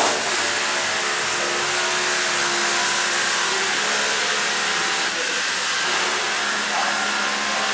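An electric motor switches on suddenly and runs steadily, a loud even whirring with hiss.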